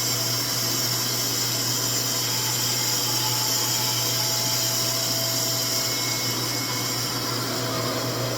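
RevAir reverse-air hair dryer running steadily while drying a section of hair drawn into its wand by suction: a constant rush of air with a low hum underneath.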